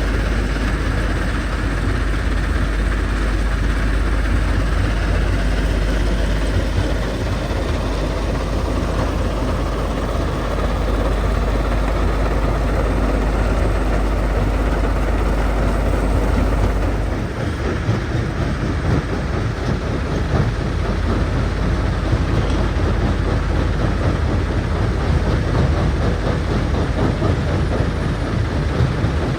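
Jonsson 1208 mobile jaw crusher running under load as an excavator feeds it rock: steady heavy machinery noise. The deep engine drone drops away about 17 seconds in, and a rattling din carries on.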